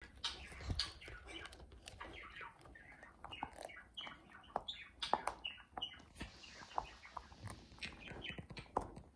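Dog gnawing a chew bone: a run of short clicking, crunching bites, with short high-pitched chirping squeaks mixed in, mostly over the first six seconds.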